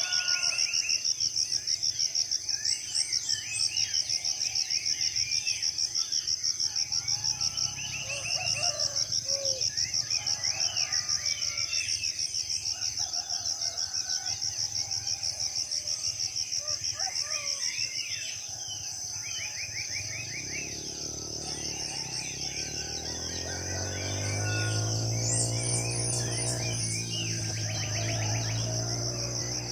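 Tropical forest dawn chorus: an insect, cricket or cicada, trilling steadily in a high, fast-pulsing buzz, with many birds chirping and trilling over it. About two-thirds of the way through, a low droning hum joins in and stays to the end.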